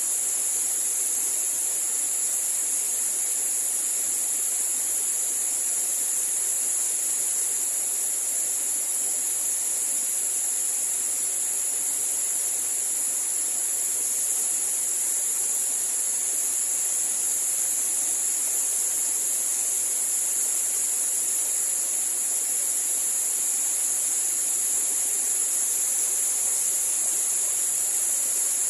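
Steady rush of Mae Klang Waterfall's falling water, with a continuous, high-pitched insect drone over it that is louder than the water.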